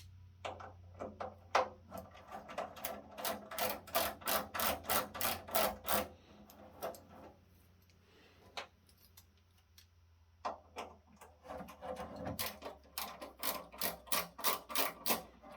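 Small hex screws being driven out with a bit screwdriver: two runs of quick, even clicking, about three or four clicks a second, the second run starting about ten seconds in.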